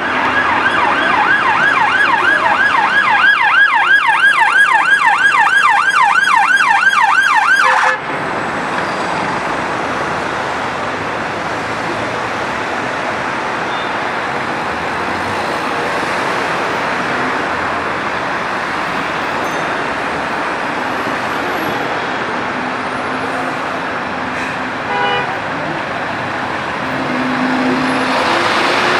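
Emergency vehicle siren on fast yelp, a rapid up-and-down wail about three times a second, cutting off suddenly about eight seconds in. After that, steady city traffic and engine noise, with a short chirp near the end.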